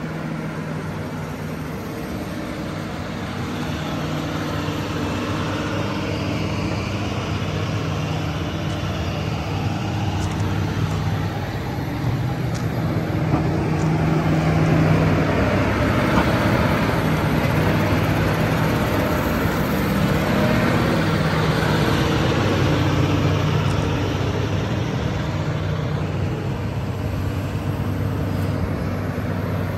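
Kobelco SK350-8 crawler excavator's diesel engine running steadily, getting somewhat louder about halfway through.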